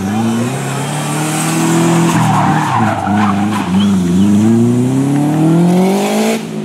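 Subaru Impreza WRX STI's turbocharged flat-four boxer engine revving hard as the car drifts out of a hairpin and accelerates away, with tyres skidding. The revs rise, drop briefly about two seconds in, then climb again to the loudest point near the end.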